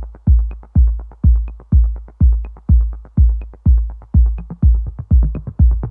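Background electronic music: a steady, deep kick-drum beat about twice a second, with a light high tick about once a second.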